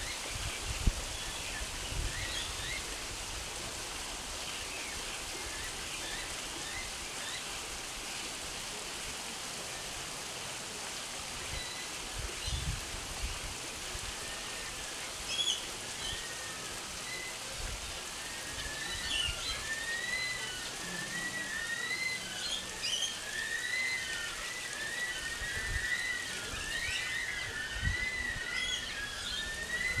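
Small birds chirping and twittering over a steady hiss. About two-thirds of the way through, the chirping gets busier, with a quick run of short arched chirps repeating over and over.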